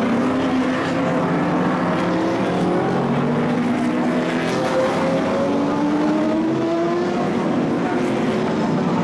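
Engines of a pack of racing cars driving past, several engine notes overlapping and rising slowly in pitch as the cars accelerate.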